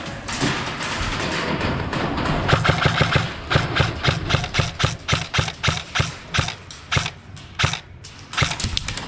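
A run of sharp clicks and knocks, several a second, over a low broken hum that fades out near the end.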